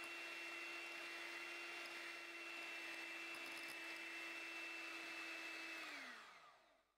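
Electric hand mixer running steadily as its beaters whip cream to fairly stiff peaks, then winding down with a falling pitch about six seconds in as it is switched off.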